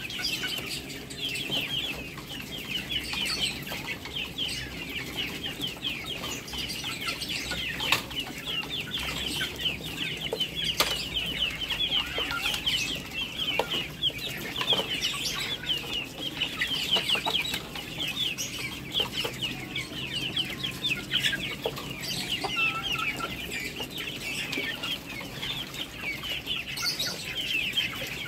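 Geese and ducks feeding on shredded cabbage: scattered sharp pecks and bill clacks on the wet ground, over a continuous chorus of rapid high-pitched peeping and chirping from the poultry.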